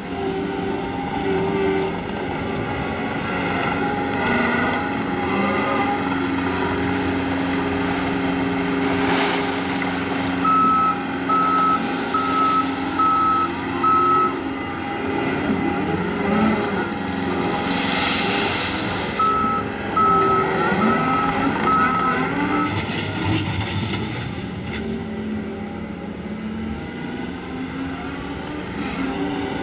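John Deere 335P skid steer's diesel engine running steadily under work, with a backup alarm beeping twice in runs of five and a couple of loud rushing noises in between.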